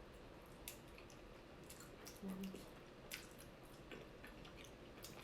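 Faint wet mouth sounds of chewing chocolate-filled mochi dumplings: soft squishes and scattered small clicks, with a brief low hum about two seconds in.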